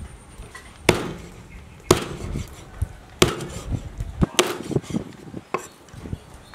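Meat cleaver chopping a raw chicken leg through the bone on a thick wooden chopping board: four heavy, sharp chops about a second apart, then a lighter one.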